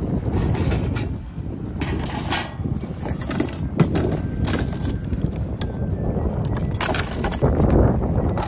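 Metal trays, a wire grill rack and utensils clattering and rattling as they are handled in a plastic storage box, over steady wind rumble on the microphone.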